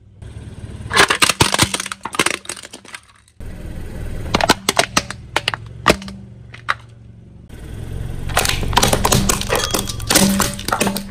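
Plastic toys cracking and snapping under a car tyre: three spells of dense sharp cracks, the last near the end as a plastic toy car is crushed, over a steady low hum.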